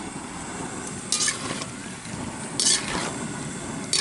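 Chicken pieces sizzling as they fry in oil in an aluminium pan, with a metal spoon scraping against the pan three times as they are stirred.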